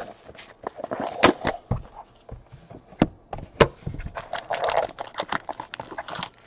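Trading cards and a cardboard hobby box being handled on a tabletop: a string of sharp taps and knocks, the loudest about a second in and again past three and a half seconds, with brief rustling of cardboard near the end.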